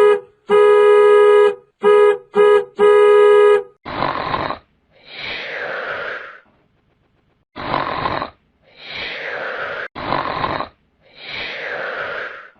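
A comedy sound effect: five honks of one steady pitch in blasts of uneven length, then cartoon snoring, a short rasping in-breath followed by a falling, whistling out-breath, repeated three times.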